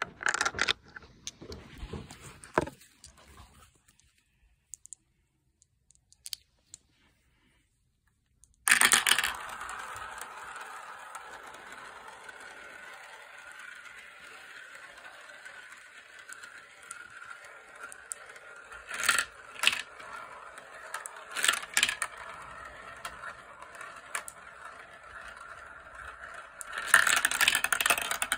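Glass marbles rolling round the bowls of a clear plastic marble run, a steady rattling whir that starts about nine seconds in after a few knocks and several seconds of near silence. Sharp clacks come a few times midway as marbles drop through the plastic pieces, and the clatter grows dense near the end.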